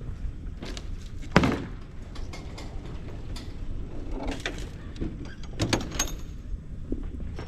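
A single sharp bang about a second and a half in, then a few lighter knocks and clicks, over a steady low rumble.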